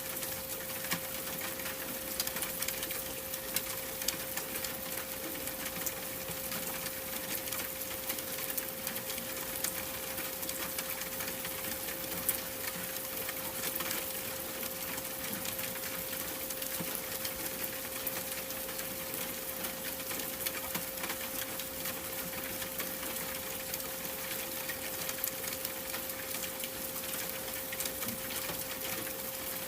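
A steady 528 Hz tone held unbroken over a constant hiss full of fine crackles.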